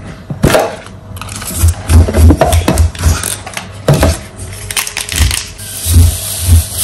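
Close handling of packaging on a countertop: a plastic storage tub knocked and rattled, a foil-lined coffee stick sachet crinkled and torn open, with a run of irregular clicks and low thumps.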